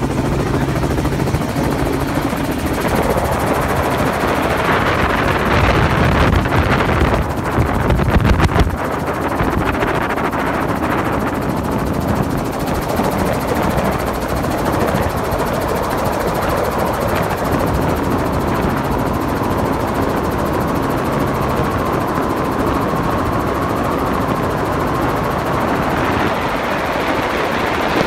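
Robinson R44 helicopter heard from inside the cabin: its six-cylinder Lycoming piston engine and main rotor run at take-off power as it lifts off and flies low. The sound swells louder and heavier for a few seconds about six seconds in.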